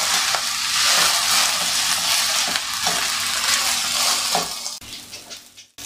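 Soaked basmati rice sizzling in hot oil as it is stirred and turned with a silicone spatula in a nonstick pan, with light scrapes of the spatula; the rice is being roasted in the oil. The sizzle fades away near the end.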